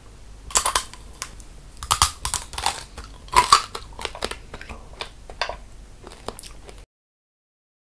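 Tanghulu strawberries' hard, glassy sugar coating being bitten and chewed: loud, sharp crunches in the first few seconds, then softer chewing crunches. The sound cuts off suddenly near the end.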